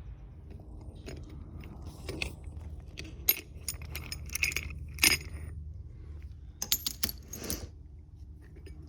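Metal tools clinking and tapping in scattered hits, with several close together about two-thirds of the way in, as a small puller is fitted and worked on the differential's speedometer gear. A steady low hum runs underneath.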